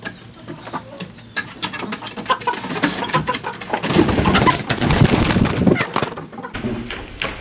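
Backyard bantam chickens clucking and making soft low calls, with scattered scratching and clicks on the dirt. From about four seconds in, a louder burst of rustling and knocking takes over.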